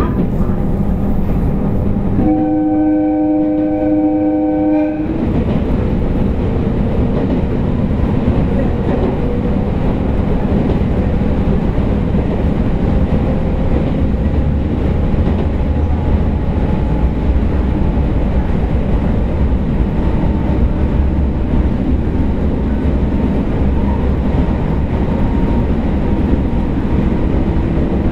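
Running sound of an Abukuma Express 8100 series AC electric train (thyristor phase control), heard aboard: a steady rumble of wheels and running gear. About two seconds in, the train's horn sounds for nearly three seconds. After that, faint motor tones rise slowly in pitch.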